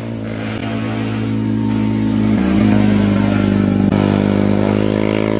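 Sport motorcycle engine running at fairly steady revs and growing louder as the bike approaches, its note shifting about two and a half seconds in.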